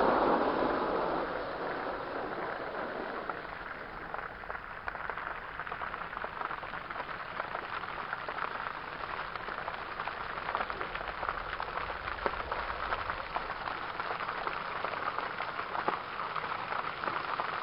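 Water from a fountain's jets splashing into its basin, a steady patter full of fine crackles. A louder rush at the start fades away within the first two seconds.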